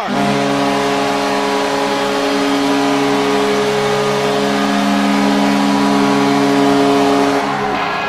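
Vancouver Canucks goal horn: a chord of several low air-horn tones held in one long blast of nearly eight seconds, then cut off abruptly.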